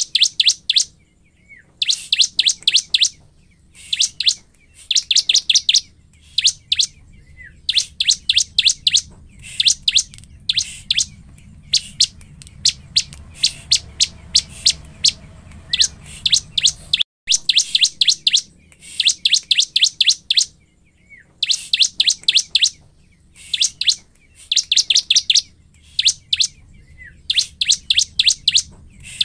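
Bar-winged prinia (ciblek) singing vigorously: quick runs of sharp, high repeated notes, each run under a second long, coming every second or two. This is the full, non-stop song of a 'gacor' ciblek, used as a lure to provoke other ciblek.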